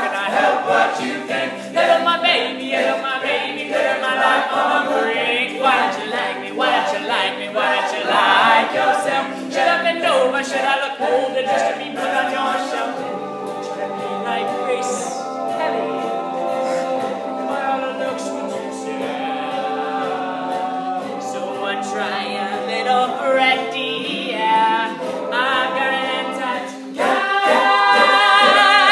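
Men's a cappella group singing a pop song, a soloist carrying the melody over the others' sustained backing chords, with no instruments. The singing grows louder near the end.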